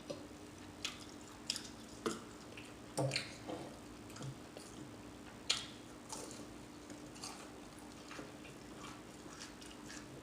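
Mouth sounds of chewing beef and cheese taquitos: scattered soft, wet clicks and lip smacks, a few every second or two, over a faint steady hum.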